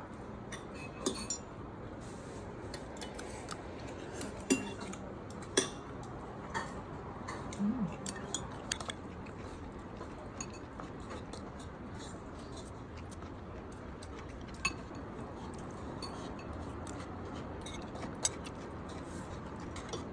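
Metal spoon clinking and scraping against ceramic bowls while eating, in scattered sharp clicks, the loudest twice around the fifth second and once more about three-quarters of the way through.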